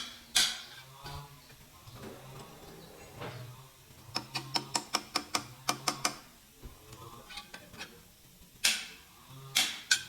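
Mechanical clicking: a quick, even run of about a dozen ratchet-like clicks in the middle, with a few louder sharp knocks near the start and end, over a low hum.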